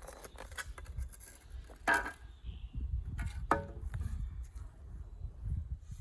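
Digging in flowerbed soil: a garden tool scraping and knocking, with several sharp clinks. One clink about three and a half seconds in rings briefly, like metal striking a rock.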